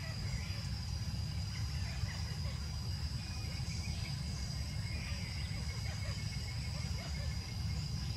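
Outdoor ambience of insects giving a steady, high-pitched drone, over a constant low rumble.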